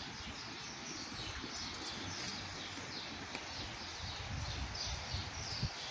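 A bird calling over and over in short, high, falling notes, about two a second, over a steady outdoor hiss.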